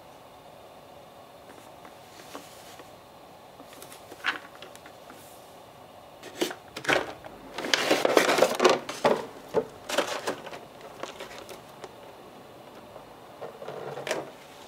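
A cardboard figure box being opened with a box cutter: sharp clicks and scrapes, with a loud run of cutting and tearing about halfway through. Near the end, a clear plastic blister tray is handled with a short crackle.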